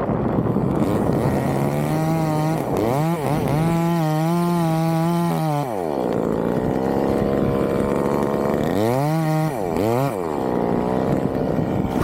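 Chainsaw engine revved up to high speed and held there for a few seconds, then dropped back to a lower speed. It is revved up and let down again twice near the end.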